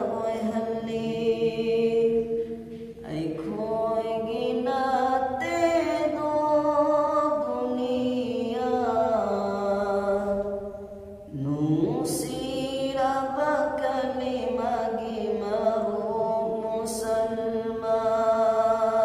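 A man singing a naat, an Islamic devotional song, unaccompanied, in long held notes that bend and waver. He breaks briefly for breath about three and eleven seconds in.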